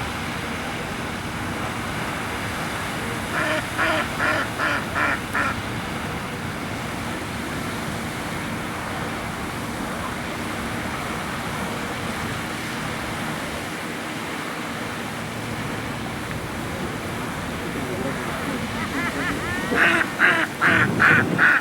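Waterfowl calling: a quick run of about six calls a few seconds in, and another run near the end, over steady background noise.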